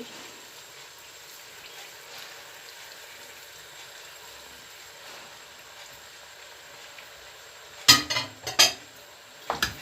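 Minced meat sizzling steadily as it fries with onion and celery in a pan. About eight seconds in, a wooden spoon knocks and scrapes against the pan several times as the mixture is stirred.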